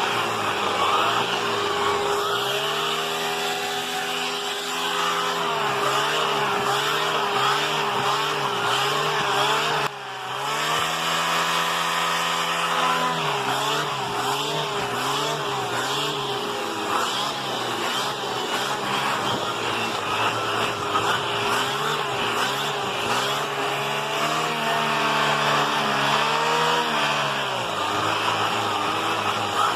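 Vacuum cleaner running steadily, a constant motor whine over a lower tone that sags in pitch and recovers several times as the nozzle works the bed sheet. The sound briefly dips about ten seconds in.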